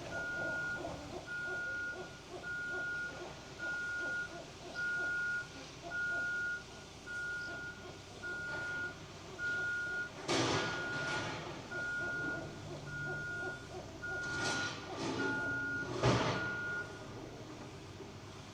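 A vehicle's reversing alarm beeping at one steady pitch, about one beep a second, stopping about 17 seconds in. A few loud, short bursts of noise come around ten and fifteen seconds in.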